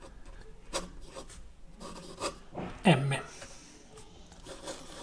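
Steel medium nib of a Lamy Al-Star fountain pen scratching across notebook paper in short strokes as letters and loops are written. A brief vocal sound with falling pitch about three seconds in is the loudest moment.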